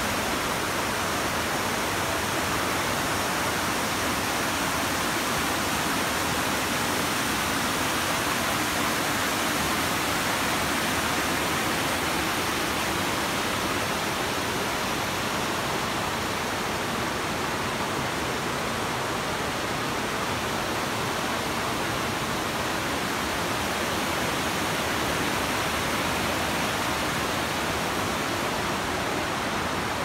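Steady rushing of a waterfall and rapids pouring over rock, even and unbroken throughout.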